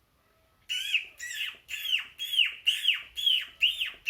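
A person imitating a baby chick's peeping with the voice: a quick string of high, falling peeps, about two a second, starting just under a second in.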